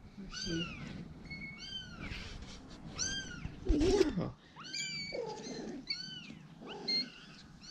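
Young kittens mewing over and over: thin, high-pitched mews that rise and fall, about one a second. About four seconds in comes a louder, lower wavering call with a knock.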